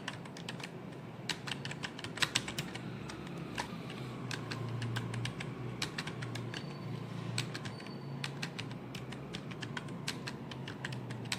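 Fast typing on a computer keyboard: a continuous, irregular run of key clicks, over a faint low hum.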